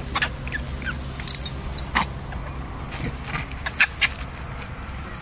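Short high squeaks and chirps from animals, with several sharp clicks, over a steady low hum.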